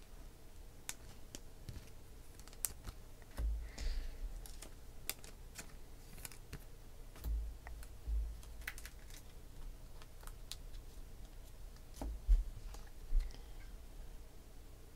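2016 Panini Select football cards being handled and sorted by hand: scattered light clicks and flicks of card edges, with a few soft low thumps, the loudest near the end as a stack is squared in the hands.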